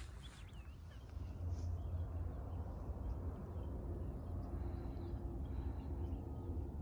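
Wind buffeting the microphone as a low rumble, louder from about a second and a half in, with a few faint bird chirps above it.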